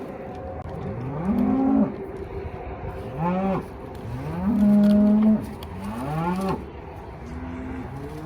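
Calves bawling, about five calls in a row, each rising in pitch, some overlapping one another.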